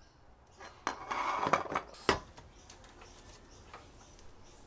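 Rusty steel tricycle parts handled on a wooden workbench: a scraping metal clatter about a second in, a sharp knock just after two seconds, then a few light clicks.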